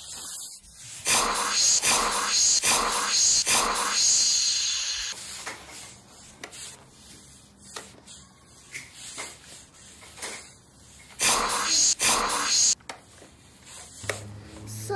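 Toy steam iron making its steam hiss: a string of short hisses over the first few seconds, then two more later on.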